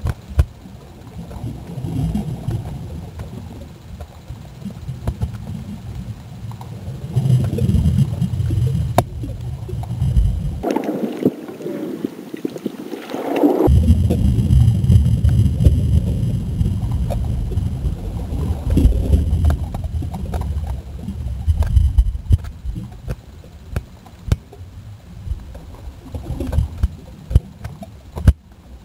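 Low rumbling and gurgling of water moving around an underwater digital camera on a landing-net pole, played back slowed down. About eleven seconds in, the deep rumble drops out for about three seconds, leaving a thinner hiss, then returns.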